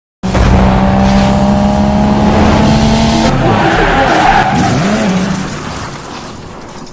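Loud car engine note with tyre skidding, the pitch wavering about halfway through before the sound fades out over the last second or so.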